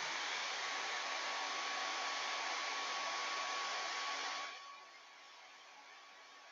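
Handheld hair dryer blowing steadily, drying freshly applied chalk paste. Its rush drops sharply in level about four and a half seconds in.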